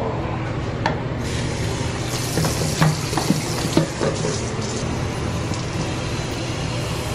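Bathroom sink tap turned on about a second in, running water steadily into a plastic water bottle as it fills. A few light clicks sound during the filling.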